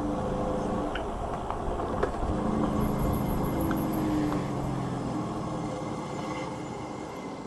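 Juiced Scrambler electric bike on the move: a low rear hub-motor hum over a steady rumble of tyres and wind, with a few small knocks from bumps.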